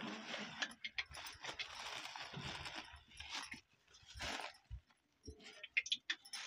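Thin plastic bag crinkling and rustling as it is squeezed and handled, with many sharp little clicks, busiest in the first three seconds, then a short burst about four seconds in.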